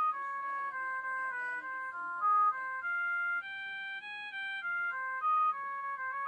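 Polyphonic ringtone of a myPhone Rumba mobile phone: an electronic melody of short held notes stepping up and down, with a few louder accented notes, starting its phrase over near the end.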